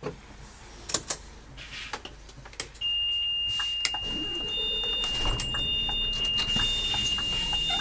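A few sharp clicks, then a steady, high electronic warning beep from the dashboard of a Scania Citywide bus. The beep starts about a third of the way in and keeps going, with a fainter broken higher tone above it.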